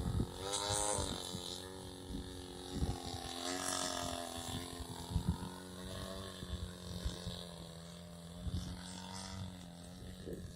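A Mamba's 70cc petrol engine running, its pitch rising and falling, then holding steady for the last few seconds. Gusty wind buffets the microphone with low thumps throughout.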